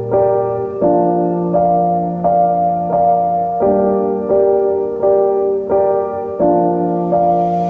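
Background music: a soft, slow piano (electric-piano-like) playing repeated chords, a new note struck about every 0.7 seconds.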